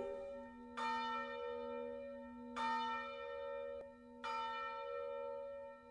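A bell struck three times, roughly a second and a half to two seconds apart, each stroke ringing on and slowly fading over a steady low hum.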